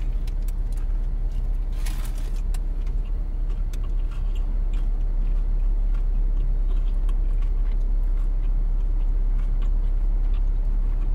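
Steady low rumble inside a parked car's cabin, typical of its engine idling, with chewing and a crackle of sandwich wrapper paper about two seconds in.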